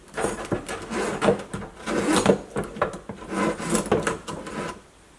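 A metal pull-down kitchen faucet and its braided steel supply hoses scraping and rubbing against the sink as they are fed through the faucet hole. The scraping is dense and irregular, with many small clicks, and stops a little before the end.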